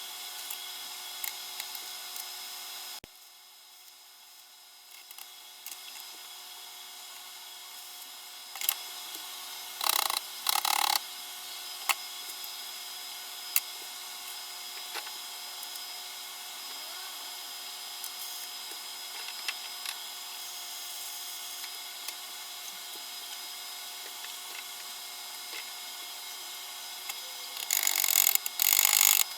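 Short bursts of harsh noise from brief tack welds, about ten seconds in and again near the end, over a steady electrical hum with scattered small clicks.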